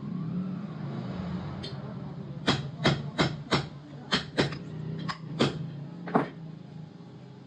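About nine sharp taps and knocks over a few seconds as valves are dropped and pressed into freshly cut valve seats in an engine cylinder head, over a steady low hum.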